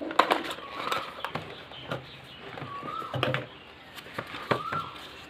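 Speaker packaging being unwrapped and handled: scattered clicks and rustles of cardboard and plastic. A short rising chirp recurs faintly about every two seconds in the background.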